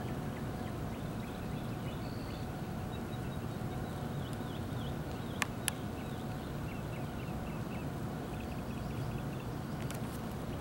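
Steady low outdoor rumble with small birds chirping faintly in short repeated notes. Two sharp clicks come close together about halfway through.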